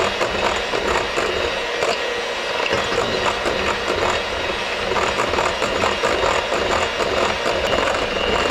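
Electric hand mixer running at medium-high speed, its beaters whisking egg yolks into a sabayon in a glass bowl, with a rapid ticking.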